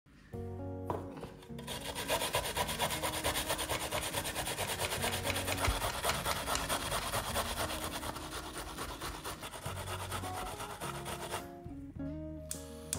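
Half an onion rubbed up and down a stainless-steel box grater in quick, even scraping strokes, starting about a second and a half in and stopping near the end, over background music.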